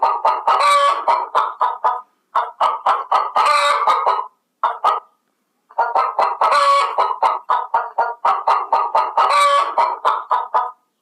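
Chickens clucking in fast runs of short, repeated clucks, about six or seven a second, with a couple of brief silent breaks.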